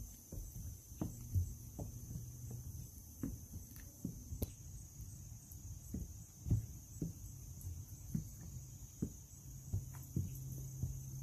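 Footsteps of a person walking at an even pace along a boardwalk, one soft knock about every half second or so, the heaviest step about halfway through. Behind them, a steady high trilling of insects such as crickets.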